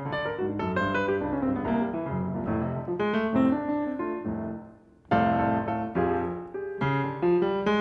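Piano playing an instrumental break in a slow blues, single notes and chords. It dies away almost to nothing just before five seconds in, then comes back with a loud chord.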